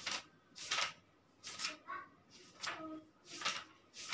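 Loose sheets of paper rustling as pages are leafed through by hand, in short crisp swishes about once every second.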